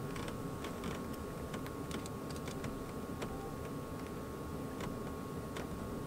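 Light, irregular clicks and taps of small metal hardware being fitted by hand at a battery cable terminal and fuse holder, over a faint steady hum.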